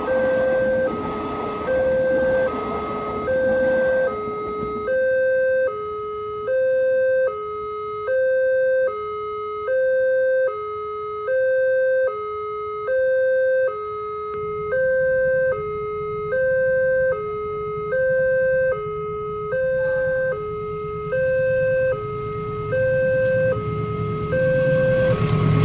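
Railway level-crossing warning alarm sounding: an electronic two-tone signal alternating evenly between a higher and a lower tone, each held for about two-thirds of a second, the signal that a train is approaching and the barrier is closing. A low traffic rumble beneath grows louder in the second half.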